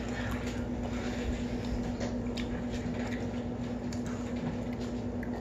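A steady low hum in a quiet room, with a few faint small clicks.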